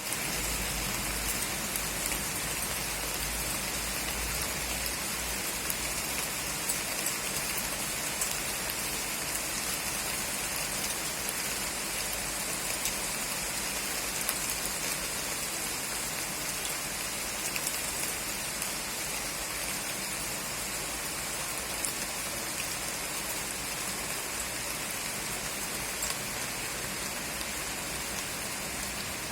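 Steady rain falling, an even hiss full of small, sharp drop ticks, with a low rumble in the first few seconds.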